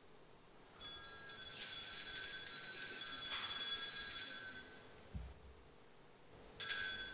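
Altar bells shaken at the elevation of the chalice, a jangling ring of several small bells that holds for about four seconds and then fades, marking the consecration of the wine. A second ring of the bells starts near the end.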